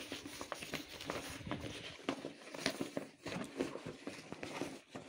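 Irregular rustling and scuffing of a snow tube's fabric cover as hands spread a deflated rubber car inner tube out inside it.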